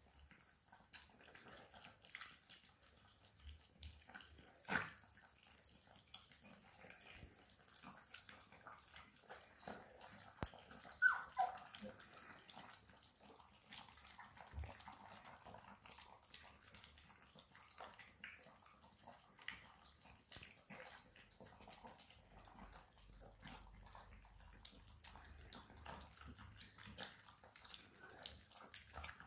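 Appenzeller Sennenhund puppies lapping milk from bowls: many soft, quick wet clicks of tongues in liquid, with a louder click about five seconds in. About eleven seconds in, a puppy gives a short whine that falls in pitch.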